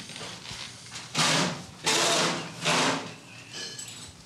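Three loud scraping, rustling noises, a bit under a second apart, of household items being shifted and handled in a cluttered utility room, with a faint high squeak near the end.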